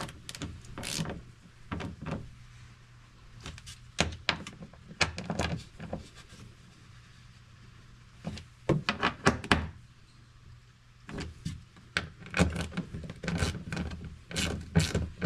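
Small hand ratchet clicking in short runs of quick clicks, with a few knocks of tool on plastic, as the bolts holding a fuel pump's flange in the plastic tank are snugged lightly by hand.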